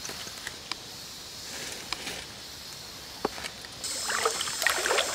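Lumps of charcoal knocking against each other as they are set on a small fire, a few sharp clicks over the steady rush of a stream. About four seconds in, a steady high insect drone starts, with several short rising and falling calls.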